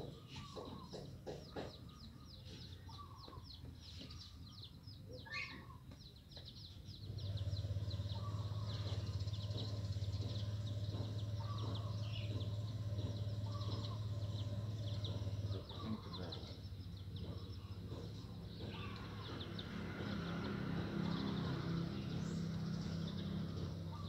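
Birds calling outdoors in short notes repeated about once a second, over fast high chirping. A steady low hum comes in about seven seconds in, drops out for a couple of seconds past the middle, then returns, and it is the loudest sound.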